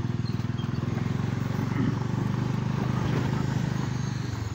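Motorcycle engine running steadily at an even, low speed while riding.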